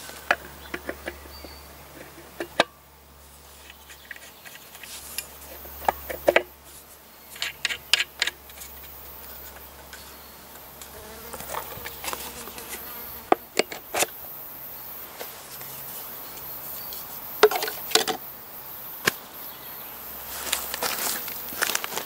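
Sharp clicks and knocks of the Tre Spade TC-12 mincer's metal grinding head and red plastic feed tray being fitted into place by hand, a few at a time with pauses between. Insects buzzing in the background.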